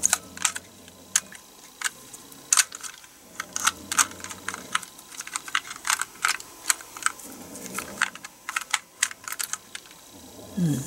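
Computer keyboard keys clacking irregularly as a sticky gel cleaner is pressed and dabbed over them, pushing the keys down.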